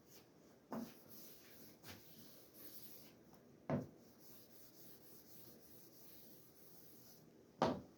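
Faint rubbing of a fine-grit Sandflex rust-eraser block across a cast-iron table saw top, with three short, louder sounds about three seconds apart.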